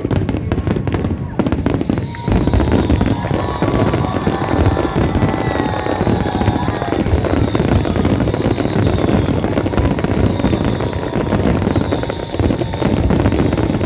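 Large fireworks display in a continuous barrage: many aerial shells bursting and crackling over one another without a break, with thin high whistling tones over the bangs.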